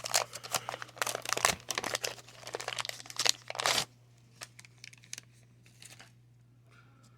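A 1990 Fleer baseball card pack wrapper being torn open and crinkled, a dense run of crackling for the first four seconds or so, then a few faint ticks as the cards are handled.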